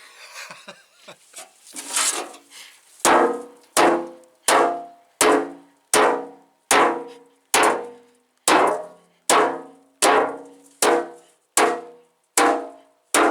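Sledgehammer pounding a dent out of a Freightliner truck's metal fender. After a few fainter knocks, about three seconds in, heavy blows start and fall in a steady rhythm, about one every three-quarters of a second. Each is a sharp metallic clang that rings briefly.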